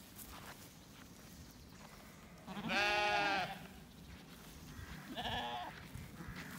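Zwartbles sheep bleating: one loud bleat about a second long a little before the middle, then a shorter, fainter bleat about two seconds later.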